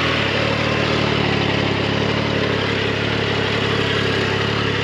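Triumph Tiger Sport 660's inline three-cylinder engine idling steadily.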